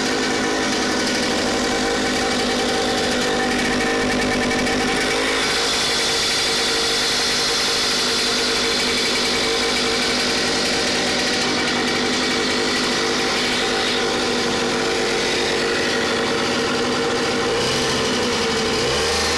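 Yamaha 5 hp air-cooled outboard motor running steadily.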